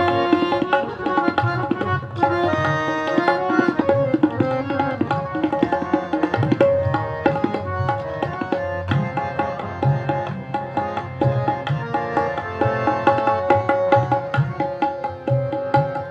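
Instrumental interlude of a ghazal: tabla playing a steady rhythm under a held melody line from an accompanying instrument.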